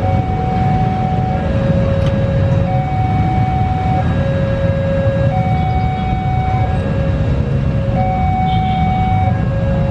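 Ambulance siren sounding a two-tone hi-lo pattern, each note held about a second and a quarter, over the steady low rumble of road vehicle engines.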